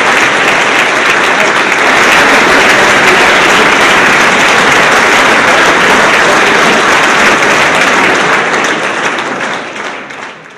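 A large seated audience applauding steadily; the applause fades away near the end.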